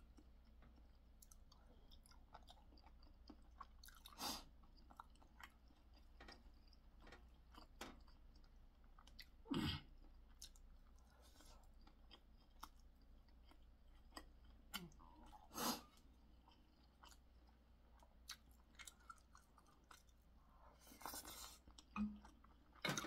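Quiet close-up chewing of chewy, spicy boneless chicken feet, with many faint wet clicks and a few sharper, louder sounds every few seconds.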